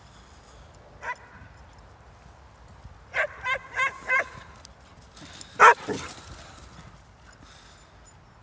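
Hungarian Vizsla giving short, high barks while chasing at play: a single bark about a second in, a quick run of four barks around three seconds in, then a louder bark followed by one more just before six seconds.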